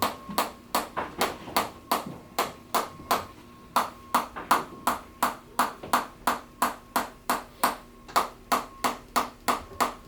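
A steady run of sharp clicking taps, about three a second, each with a brief ringing tone.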